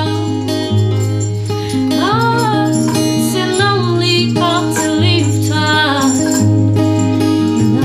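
A song with a woman singing in sliding, ornamented phrases over a strummed small acoustic guitar and deep sustained bass notes. Devilstick percussion runs through it: the hand sticks strike the devil stick in a steady rhythm of sharp clacks.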